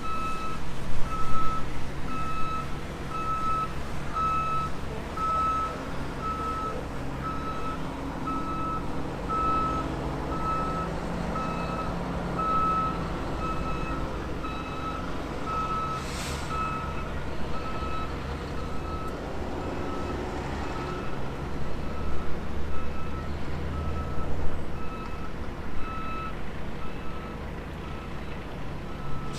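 A heavy-equipment reversing alarm beeping steadily at one pitch, about once a second, over a running diesel engine whose pitch rises and falls at times. A short hiss of air comes about halfway through.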